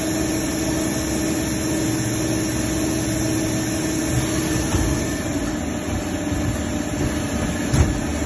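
CNC lathe running with a steady machine hum that carries several held tones. A few short knocks come about halfway through, and a louder one near the end.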